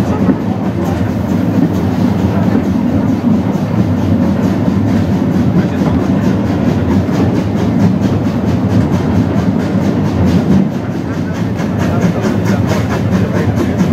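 A 75 cm narrow-gauge steam train running, heard from an open wagon within the train: a steady rumble of the coaches rolling on the rails, with a rhythmic clatter.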